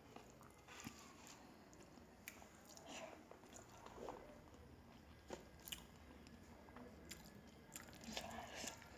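Quiet chewing of a mouthful of rice mixed with curries and greens. Short, soft, wet mouth clicks and smacks are scattered through it.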